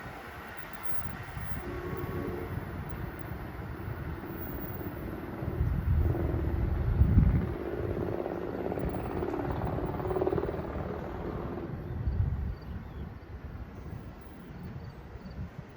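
Train running past on the tracks, a steady rumble with a faint steady hum, while wind buffets the microphone, hardest about six to seven seconds in and briefly again near twelve seconds.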